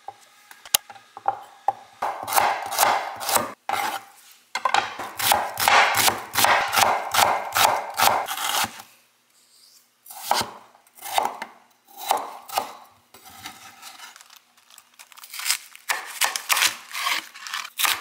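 Kitchen knife chopping food on a cutting board: quick runs of strokes for several seconds, then slower, spaced single cuts.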